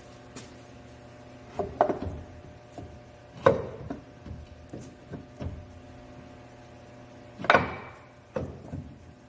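BMW X1 front differential housing being shifted and worked by hand in a tight space, giving a few sharp knocks and clunks against the surrounding parts and wooden support blocks. The loudest come about three and a half and seven and a half seconds in, with lighter taps and rubbing between, over a steady low hum.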